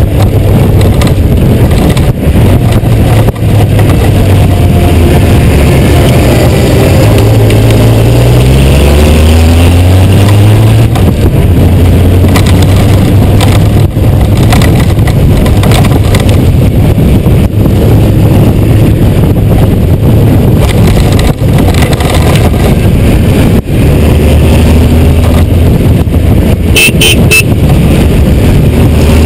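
Honda GoldWing 1500's flat-six engine running at road speed on a mountain descent, under a loud steady rush of wind and road noise. Its pitch dips and then climbs again about ten seconds in, as the revs change through a bend.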